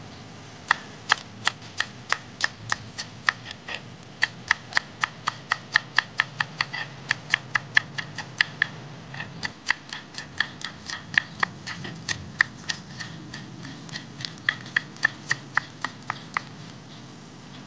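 Kitchen knife chopping green onions on a wooden cutting board: sharp, regular knocks of the blade on the board, about three to four a second, in runs with a few short pauses.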